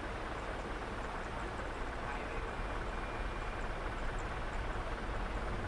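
Steady rushing noise inside an airliner's cabin: engines and airflow, over a constant low rumble.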